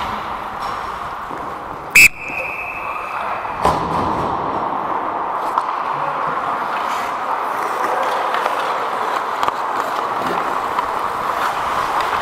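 Skates scraping and carving on rink ice, with one sharp referee's whistle blast about two seconds in, held for about a second and a half, the loudest sound; a sharp knock follows just after it.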